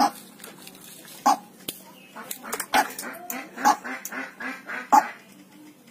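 White-breasted waterhen giving a series of short, harsh calls, irregularly spaced, the loudest at the start and about five seconds in.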